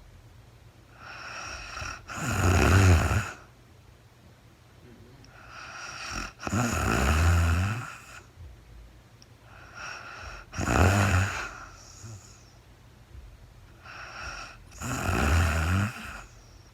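A sleeping woman snoring, four loud low snores spaced about four and a half seconds apart. Each one starts as a softer breath and swells into the snore, with quiet breathing between.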